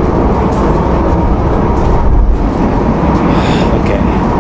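ETS electric train running, a loud steady rumble.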